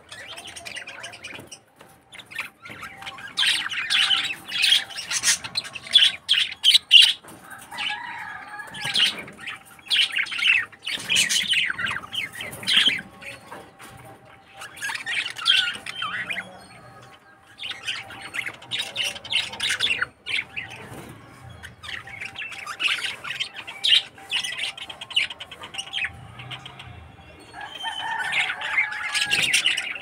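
Budgerigars chattering, with bursts of quick, sharp chirps and warbles and short lulls between.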